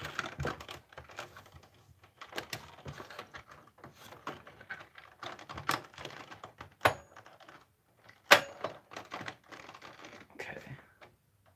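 Irregular clicks, taps and knocks of a replacement speaker being pushed and shifted into a TV's plastic housing where it doesn't fit well, with a sharp louder knock about eight seconds in.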